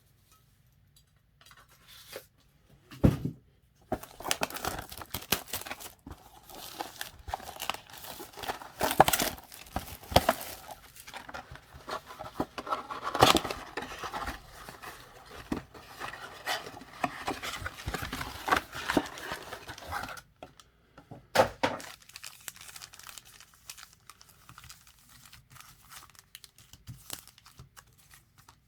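Plastic wrapping being torn and crinkled as a box of football trading cards is opened, with dense crackling for much of the time. There are two knocks, about 3 s and about 21 s in.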